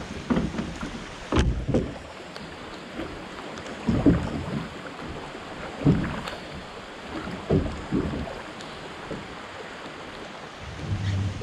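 Oars of a drift boat being rowed: a loud stroke splashing about every two seconds, over steady river and wind noise.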